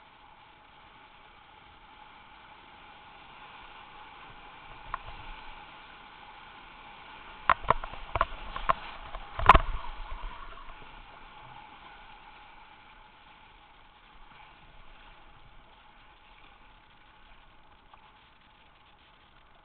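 Steady rushing of whitewater rapids heard from a kayak cockpit, with a cluster of sharp knocks and splashes about halfway through, the loudest one near the end of that cluster.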